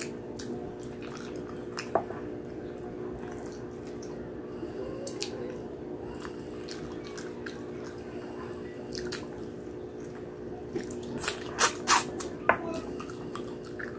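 Close-up wet chewing and lip smacking of someone eating saucy braised pork hock with rice by hand, with a few loud sharp smacks near the end. A steady low hum runs underneath.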